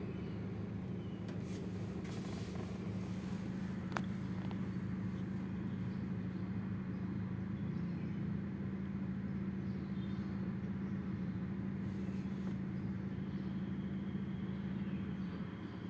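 Steady low mechanical hum in the background, with a single short click about four seconds in.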